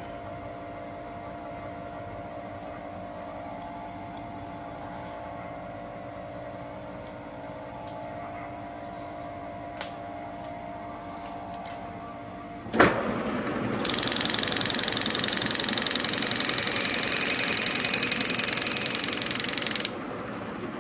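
Vertical milling machine running with a boring head in the bore of an aluminium arm, a steady hum. About 13 s in there is a sharp knock, then a loud, harsh cutting noise for about six seconds as the boring tool takes its cut, stopping abruptly near the end.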